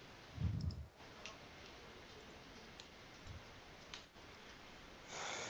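A few sparse light clicks of someone working a computer, over the steady faint hiss of an online call's audio line. A short low thud comes about half a second in, and a brief breathy rush near the end.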